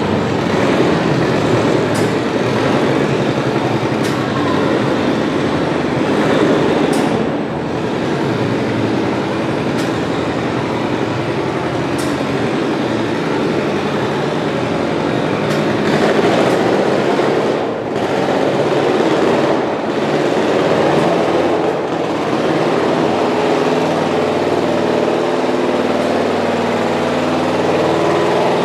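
Antique John Deere two-cylinder tractor engine running hard under load while pulling a weight sled, a loud, rough, rapidly pulsing drone with a few sharp cracks in the first half. In the last few seconds it settles to a steadier, more even note.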